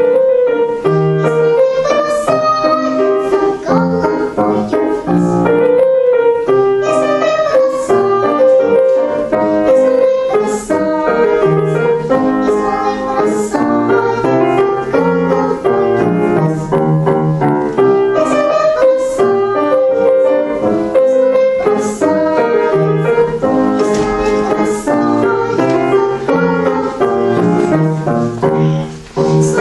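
A girl singing a song with piano accompaniment, her held notes wavering with vibrato over steady piano chords.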